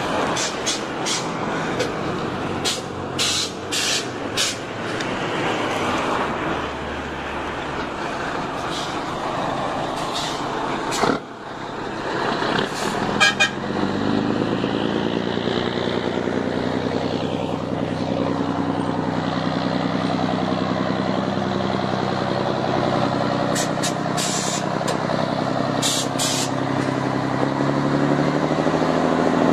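Scania 112 truck's 11-litre straight-six diesel engine running. About eleven seconds in it dips briefly, then rises and settles into a steady, even note from about fourteen seconds on. Short sharp clicks come over it several times in the first few seconds and again near the end.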